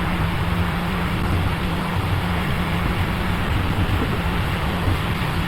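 Hot air rework station blowing a steady stream of air with a low hum, heating the damaged LCD connector to melt its solder and lift it off the board.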